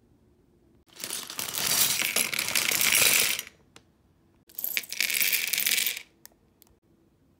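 Small plastic LEGO pieces poured out and clattering onto a LEGO baseplate in two spills, the first about two and a half seconds long and the second about a second and a half, each followed by a few single clicks.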